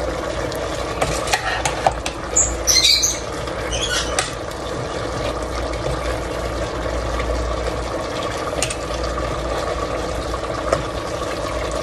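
A metal ladle stirring pork menudo stew in a stainless steel pot: light clinks and scraping, with a couple of brief high squeaks about two and a half and four seconds in, over a steady hum.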